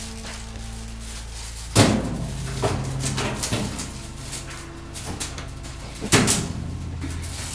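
Laundry being loaded into a top-loading washing machine: two loud knocks, one about two seconds in and one about six seconds in, with clothes rustling and light clatter between them, over a steady low hum.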